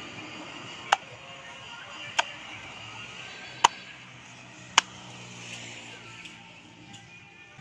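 Hand-forged spring-steel cleaver chopping into the husk of a green coconut on a wooden stump: four sharp chops, roughly one every second or so, then no more strikes. Background music plays throughout.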